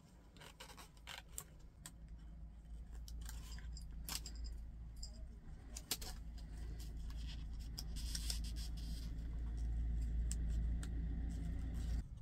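Handling noise from an instrument cluster's circuit board being worked in rubber gloves around its LCD ribbon-cable connectors: small clicks, scrapes and rustles, with sharper clicks about four and six seconds in. A low rumble underneath grows louder toward the end.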